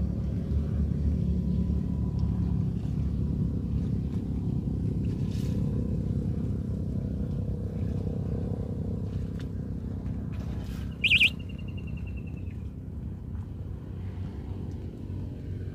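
Steady low engine rumble, with one sharp high-pitched chirp about eleven seconds in.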